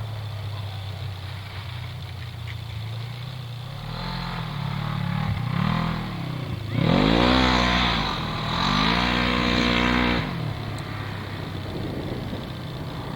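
A motor vehicle's engine revving up and falling back several times over a steady low engine hum, loudest in the second half; no gunshots are heard.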